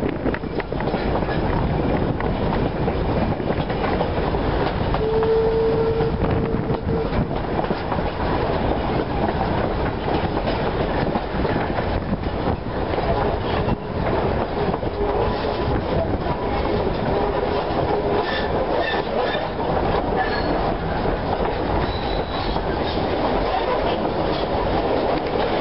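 Train behind steam locomotive C17 No. 720 running along the line, heard from beside a wooden carriage: a steady rumble of wheels on the track with the clickety-clack of rail joints. A short steady tone sounds about five seconds in.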